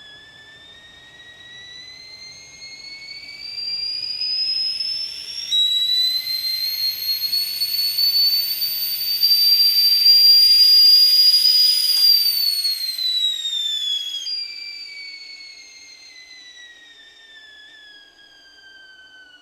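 Kettle whistling as the water boils. The whistle climbs in pitch and loudness, jumps to a shriller note about five seconds in, then falls in pitch, drops back to a lower note about fourteen seconds in, and fades away.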